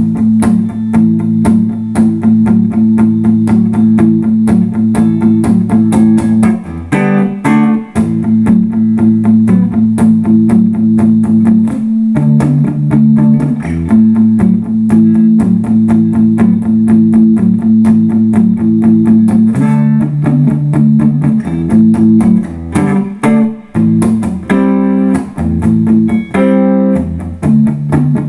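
2008 Epiphone Sheraton II semi-hollow electric guitar played with a clean tone through a Fender Blues Junior valve amp: a quickly picked, rhythmic riff over held low notes, with brief higher single-note runs about seven seconds in and again near the end.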